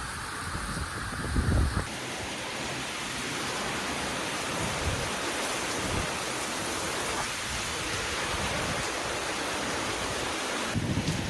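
Heavy cyclone rain with strong wind: a steady, dense hiss of downpour, with wind buffeting the microphone in low rumbles about a second and a half in and again near the end.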